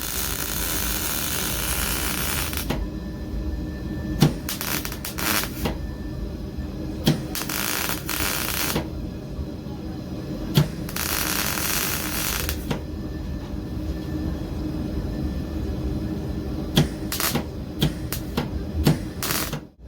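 MIG welder arc crackling in three short runs of one to three seconds, with sharp clicks and knocks in between.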